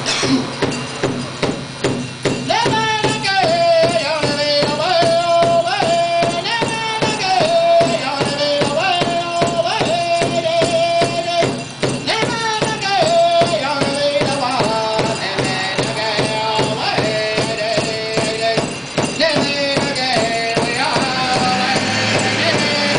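Powwow drum song for the men's grass dance: a steady drum beat, with high-pitched singing coming in about two and a half seconds in. The dancer's bells jingle in time with the drum.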